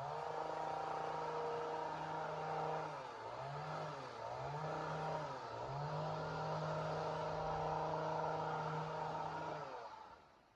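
Two-stroke chainsaw running at high revs, its pitch dipping and climbing back three times a few seconds in, then steady again until it dies away near the end.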